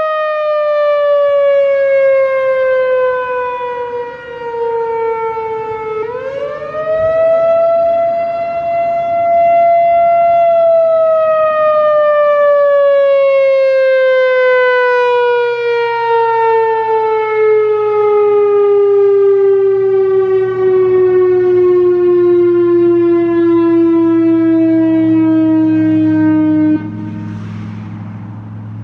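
Whelen WPS-4004 electronic outdoor warning siren sounding its tone, which falls slowly, swings back up about six seconds in, holds briefly, then slides down for a long time before cutting off abruptly near the end. A low steady hum carries on after the cutoff.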